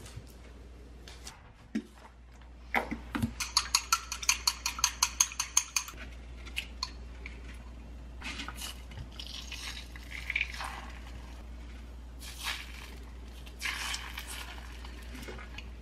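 Wooden chopsticks beating egg in a ceramic bowl: a fast, even clinking of about six strokes a second for roughly three seconds. Then quieter taps and scrapes as egg-coated gimbap slices are lifted from the bowl and laid in a frying pan.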